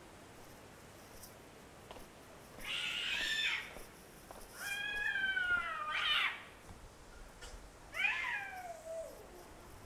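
An animal calling three times: drawn-out cries that fall in pitch, the middle one the longest.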